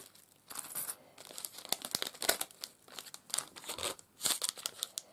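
Clear cellophane craft packaging crinkling in irregular bursts as a packet of embellishments is handled and pulled open.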